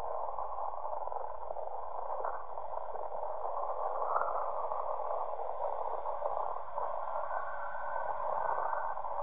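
Jet airliner engines running as a narrow-body airliner rolls along the runway: a steady rushing noise with small swells.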